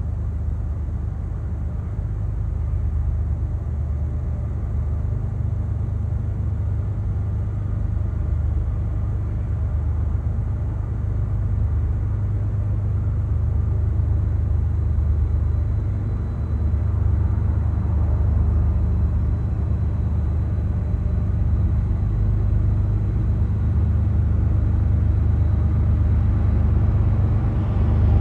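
Diesel freight locomotives running, a steady low engine drone that slowly grows louder.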